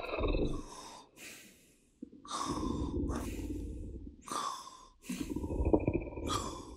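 Slow, heavy breathing of sleeping creatures, about four breaths in all, each with an airy hiss and a low rumble like a soft snore.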